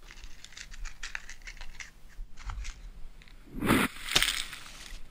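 Skis crunching and scraping over packed snow in quick irregular crackles, then a louder rush of skis and spraying snow about three and a half seconds in as the skier takes off and passes close by.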